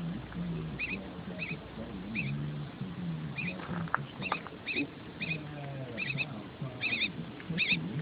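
Young wild bird giving repeated short, high begging chirps, mostly in quick pairs, a little over one pair a second: a fledgling calling to be fed.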